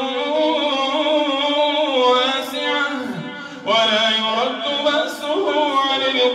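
A man reciting the Quran in a slow melodic chant, holding long drawn-out notes. He breaks off briefly about three seconds in for a breath, then carries on.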